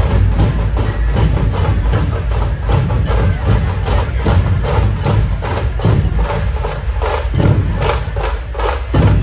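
Loud music played over a large street sound-system setup: a fast, steady percussive beat of about four strokes a second over heavy bass.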